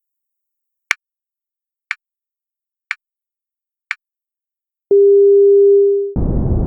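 Countdown timer's start cue: sharp ticks one second apart, then a single steady low beep lasting about a second. Soft brown noise starts just after it, a steady low rumbling hiss.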